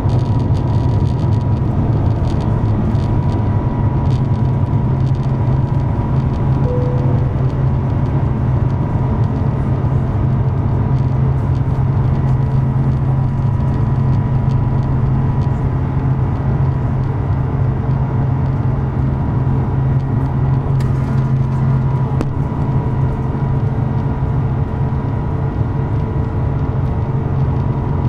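Rolls-Royce Trent XWB-97 turbofan on an Airbus A350-1000 at takeoff thrust, heard inside the cabin: a steady deep rumble with a thin steady whine above it, through liftoff and the initial climb.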